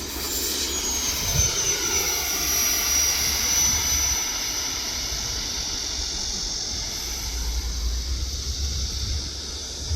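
Whine of the 70mm electric ducted fan on an FMS F/A-18 RC jet flying past. The pitch drops over the first few seconds as the jet passes, then the whine fades.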